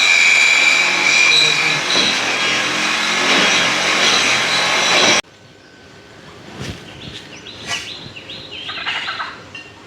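Loud metalworking noise, welding or grinding, steady, with a high whine. It cuts off abruptly about five seconds in. Quieter clicks and a run of short high chirping calls follow near the end.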